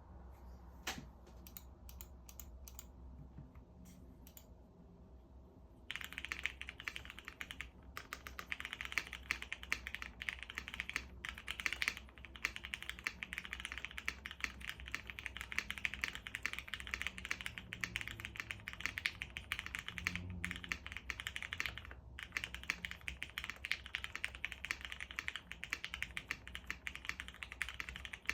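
Typing on a Vega 65% mechanical keyboard with an aluminium plate, lubed and filmed Cherry MX Black Hyperglide linear switches and PBT keycaps. A few scattered keystrokes give way, about six seconds in, to fast continuous typing with a couple of brief pauses.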